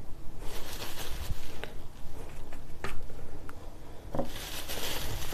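Bristle brush working thick oil paint on canvas: two soft, scratchy swishes of strokes, with a few light taps in between.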